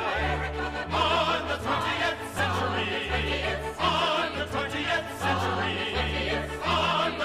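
A Broadway show-tune recording: a chorus singing with vibrato over an orchestra, with a bass line that moves note by note about twice a second.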